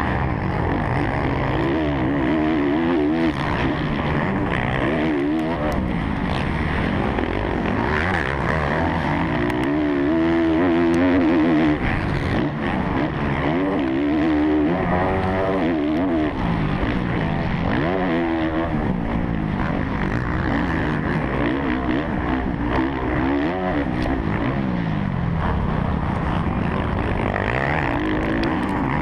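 Kawasaki KX450F single-cylinder four-stroke motocross engine at race pace, revving up and dropping back over and over, every second or two, as it is shifted and throttled through the track.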